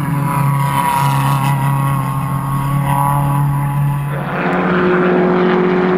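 Suzuki Swift race car engines running at high, steady revs through a corner. About four seconds in, the note changes to a slightly higher one.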